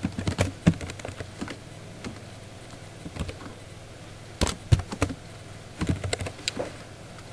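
Computer keyboard typing in three short flurries of key clicks with pauses between them.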